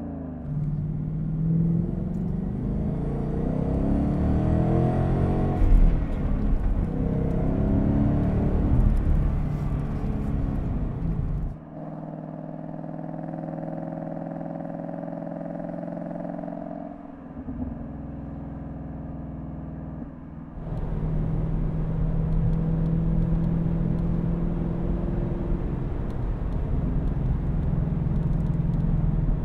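2018+ Ford Mustang GT's 5.0 L V8 through a Borla Attack cat-back with a Borla resonator muffler in place of the X-pipe, active exhaust in normal mode. For the first ten seconds or so it revs up and down, heard from outside at the tailpipes. It then holds steady at about 2,500 rpm, and from about twenty seconds in it is heard from inside the cabin.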